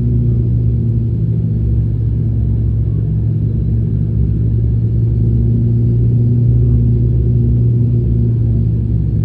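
Steady low drone of an ATR turboprop airliner's propellers and engines, heard inside the passenger cabin, with a strong even hum.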